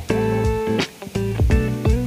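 Background music: a guitar-led track with plucked and strummed notes over a steady drum beat.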